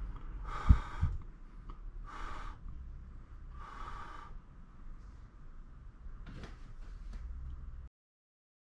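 Slow, regular breaths, a soft puff of air about every second and a half, with one sharp tap about a second in. The sound cuts off suddenly near the end.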